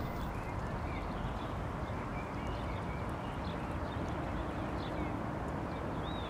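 Steady noise from the camera's built-in microphone, heavy in the low end, with faint high chirps of small birds scattered throughout.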